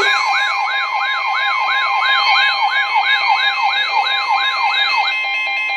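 Emergency alert siren for a tornado warning: a rapidly repeating falling wail, about two and a half sweeps a second, over a steady alert tone. The sweeps stop near the end while the steady tone holds.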